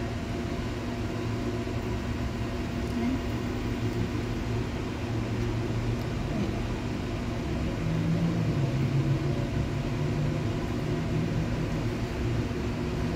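Steady low machine hum, like a running appliance or fan, with a second low humming tone joining about eight seconds in.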